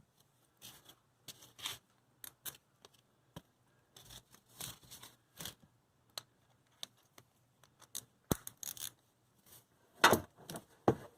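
Scattered small clinks, clicks and scrapes of hand tools being handled during an oil change, with a louder cluster near the end.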